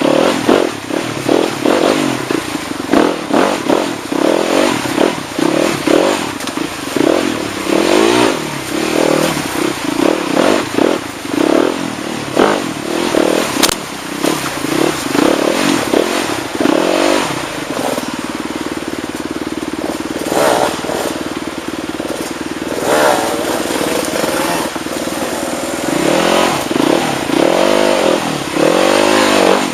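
Motorcycle engine revving up and down again and again, with short clicks and knocks over it. Its note holds steady for several seconds past the middle, then the revving starts again.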